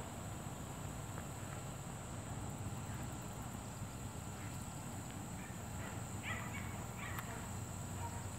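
Outdoor ambience with a steady low rumble and a thin steady high tone, and a few short animal calls about six and seven seconds in.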